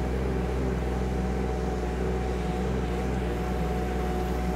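Kymron ZX22D mini excavator's diesel engine running steadily while it digs, with a thin steady whine joining about a second in.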